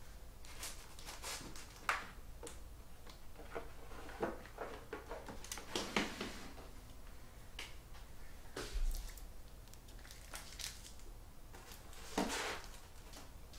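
Trading cards and plastic card holders being handled on a table: scattered light clicks, taps and rustles, with two louder rustling scrapes about six seconds in and near the end.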